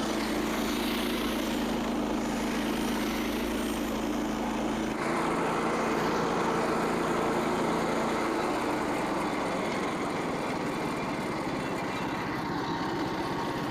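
Frontier OS27 portable bandsaw sawmill running steadily, its engine driving the band blade through a red oak log. About five seconds in, the engine's hum changes abruptly.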